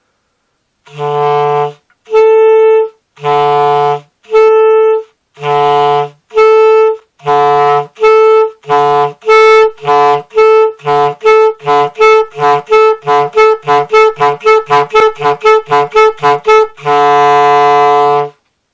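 German (Oehler-system) clarinet playing a register-change exercise: low E alternating with the B a twelfth above, reached by adding the register key. It starts at about one note a second, speeds up to about four a second, and ends on a held low E.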